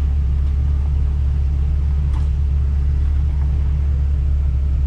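Jeep running on an off-road trail, a steady low rumble with no change in pitch.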